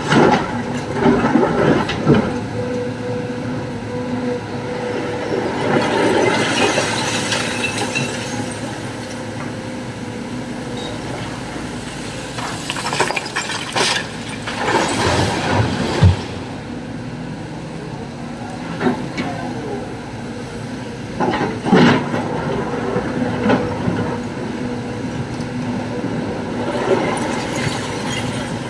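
Sany crawler excavator's diesel engine running steadily while the bucket scrapes and clanks against broken rock. About halfway through, a bucketload of rock crashes into a steel dump-truck bed with a burst of loud clattering impacts, and more rock knocks follow later.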